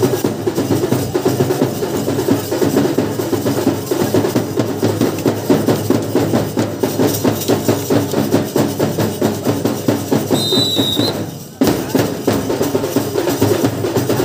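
Drums beating a fast, steady rhythm, with one short whistle blast about ten seconds in. The drumming drops out for a moment about eleven and a half seconds in, then carries on.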